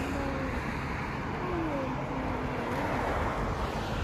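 Steady outdoor noise of wind on the microphone and distant traffic, with a faint wavering tone rising and falling through the first three seconds.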